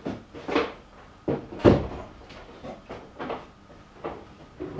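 Clunks and knocks of heavy metal tools being handled and set down on a bench. The loudest is a heavy thud about a second and a half in.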